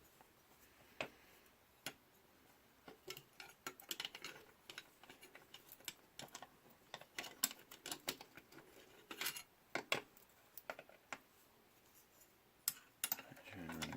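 Small plastic parts of a DJI Phantom 3 Pro camera gimbal being handled and a cover fitted back on, giving faint, irregular clicks and taps with a few sharper snaps.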